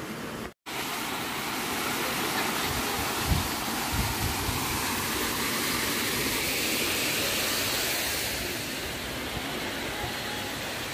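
Steady rush of flowing water from a stream and waterfall, with a brief dropout about half a second in and a few low thumps of camera handling.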